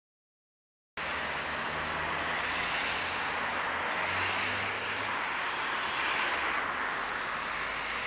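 Road traffic noise: a steady hiss of tyres and engines that starts suddenly about a second in and swells as a car passes close about four seconds in.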